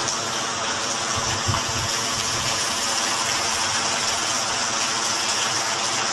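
Rain falling in a steady hiss.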